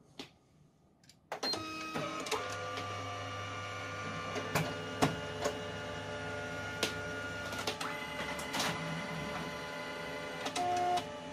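Canon multifunction copier starting a copy: after about a second of quiet, its motors start up with a steady whir, held tones and scattered clicks as the scanner carriage sweeps under the glass.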